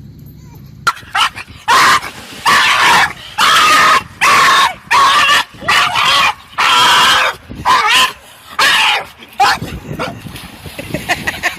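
A dog barking and whining loudly in a run of about ten drawn-out calls, each under a second long, which stop about two seconds before the end.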